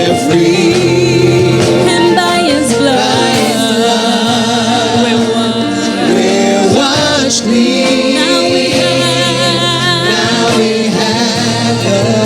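Gospel worship song: voices singing with vibrato over instrumental accompaniment with sustained bass notes.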